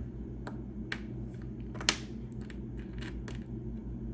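Small metal parts clicking and ticking as the rivet gun's toothed jaw pieces are dropped and settled into the nose housing, with one sharper click about two seconds in. A steady low hum runs underneath.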